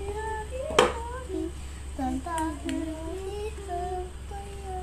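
A child singing a tune to herself, with one sharp tap a little under a second in.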